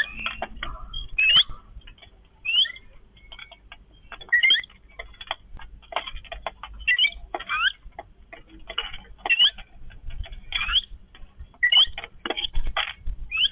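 Yellow-billed babblers calling: short, rising, squeaky chirps repeated irregularly, several times a second at their busiest, among many short clicks.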